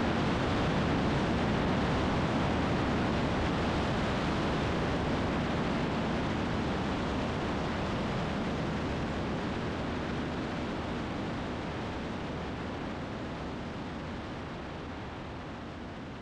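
Light single-engine Cessna in flight: steady engine and propeller drone under a wash of wind noise, slowly fading out.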